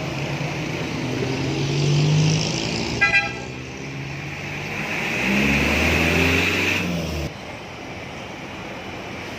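Road traffic going by, with a short double toot of a vehicle horn about three seconds in. A low engine hum swells from about five seconds and cuts off suddenly a little after seven seconds.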